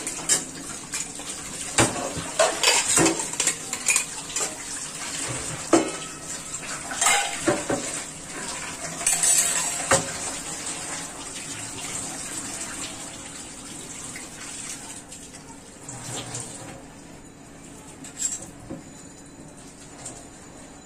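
Steel plates, bowls and pots clattering and clinking as they are washed under a running tap in a stainless steel sink. The knocks come thick in the first half and thin out to a few clinks later over the steady run of water.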